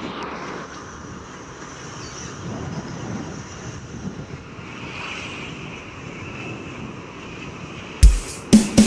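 Wind buffeting the microphone of a moving camera, with a steady rush of road and traffic noise. Loud music with drum beats cuts in near the end.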